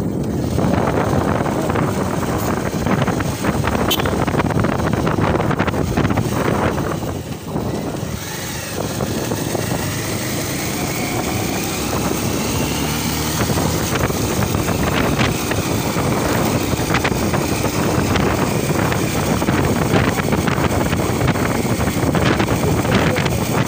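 Motorcycle on the move: engine and road noise mixed with wind buffeting the microphone, steady apart from a brief dip about seven seconds in.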